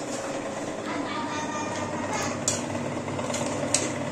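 Steel ladle scraping and clinking against a steel kadai as chicken pieces are stirred and fried in oil, over a steady hiss of frying. This is the kosha stage of a chicken curry, the slow sauté until the oil separates.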